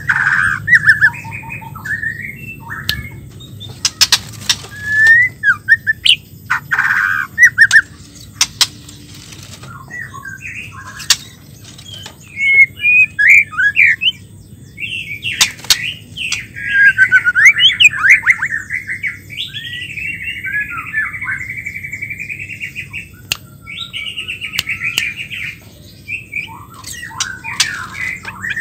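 White-rumped shama calling and singing, given as a female's voice: short whistled and chattering phrases with pauses between them, then a longer run of varied warbling song past the halfway point, with sharp clicks here and there.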